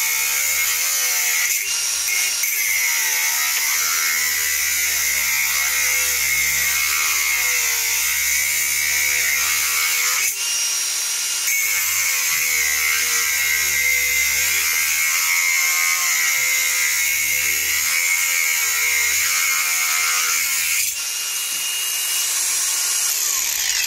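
INGCO cordless brushless 115 mm angle grinder running loaded, its disc cutting through the work with a steady, hissing grind. The sound changes about three seconds before the end.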